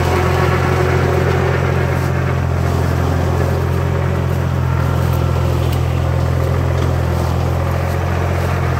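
ATV engine running at a steady pace, a constant low drone.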